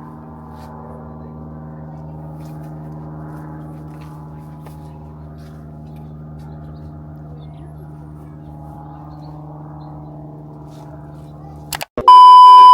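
A steady drone of several held tones sounding together. It cuts off near the end and gives way to a loud, steady, high single-pitch beep lasting about a second, like a censor bleep.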